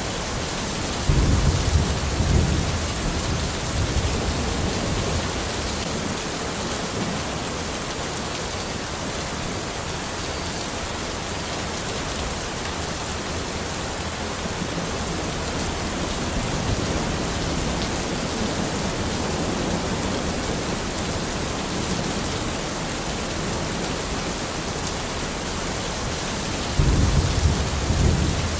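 Steady rain falling in a forest, with a low rumble of thunder about a second in and another near the end.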